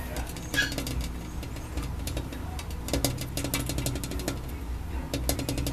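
A Maltese puppy gives one short, high-pitched yelp about half a second in. After it come scattered light clicks and taps over a steady low hum.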